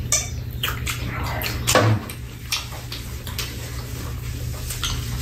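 Close-up eating and drinking sounds: a slurping sip from a mug near the start, then scattered small clicks, smacks and rustles from hands pulling apart a shrimp burger and handling its paper wrapper, over a steady low hum.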